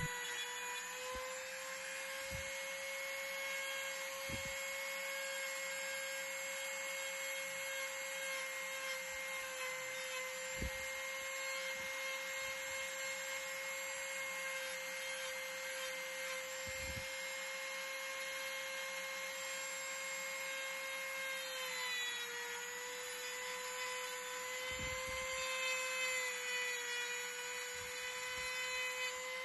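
Ryobi 1.2-amp corded rotary tool running with a steady whine as its small bit grinds texture grooves into a hiking stick's wood. A little past halfway the whine dips in pitch for a moment, then comes back up.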